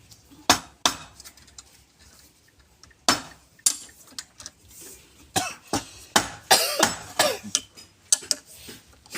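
A series of irregular sharp knocks and clinks of hard objects being handled, coming more often in the second half.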